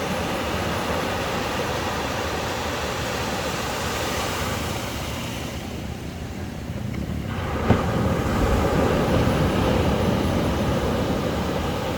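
Ocean surf rushing steadily on the beach. The hiss thins for a moment past the middle, then, just after a brief sharp knock, a wave breaks and surges in louder with a deep rumble.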